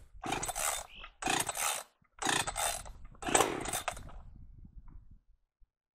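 Gas chainsaw being pull-started: four quick pulls of the starter cord about a second apart, the engine turning over briefly with each pull but not catching.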